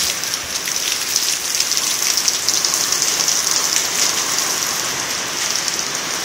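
Heavy rain falling on a wet gravel yard and puddles: a steady hiss full of fine drop splashes.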